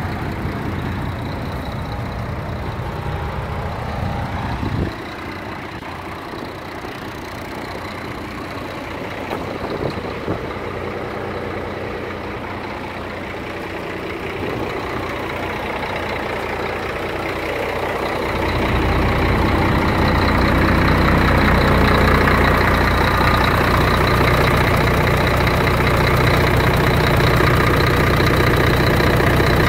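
Scania 114 G 380 truck's 11-litre straight-six diesel idling steadily. It gets louder and fuller about two-thirds of the way through, heard close up under the cab near the engine.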